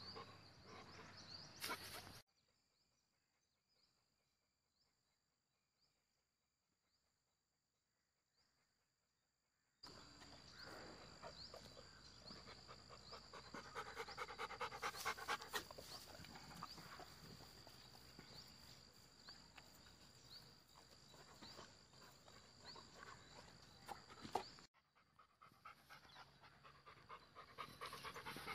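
A dog panting close to the microphone in quick, rhythmic breaths. It stops about two seconds in, leaving near silence for about eight seconds, then resumes and carries on, pausing briefly near the end.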